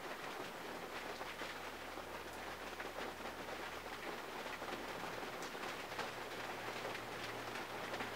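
Steady rain pattering on the body and windows of a 1951 Mercury, heard from inside the cabin as a dense patter of small drop clicks. A faint low hum lies underneath and moves up in pitch about five seconds in.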